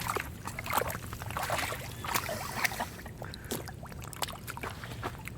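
A dog rooting and wallowing in a mud puddle: irregular wet sloshing and squelching of mud and water.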